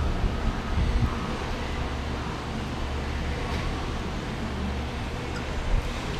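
Steady low rumble with a hiss of background noise.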